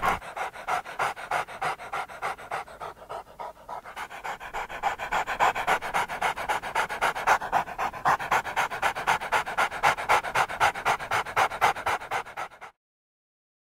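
A dog panting fast and rhythmically, about four or five breaths a second, that cuts off abruptly near the end.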